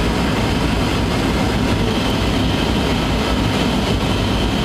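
Steady cabin noise inside a passenger airplane in flight: the even, low-heavy rush of engines and airflow, with a faint high whine joining about two seconds in.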